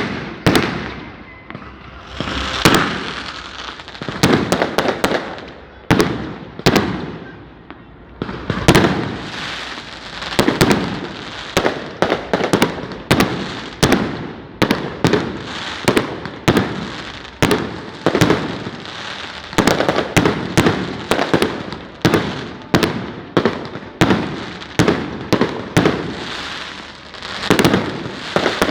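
Firecrackers going off one after another: sharp bangs in quick succession, each with a brief ringing tail.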